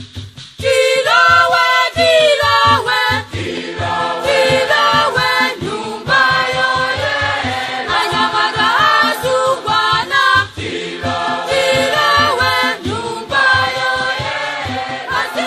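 A group of voices singing a song together in harmony over a fast, steady drumbeat; the singing comes in about half a second in.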